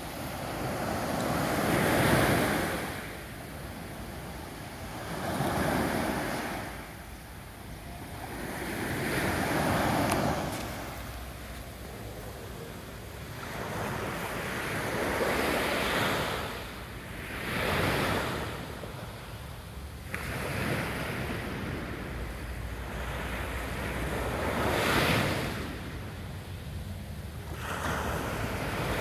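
Small waves breaking and washing up a sandy beach on a calm sea, the surf swelling and falling back every few seconds.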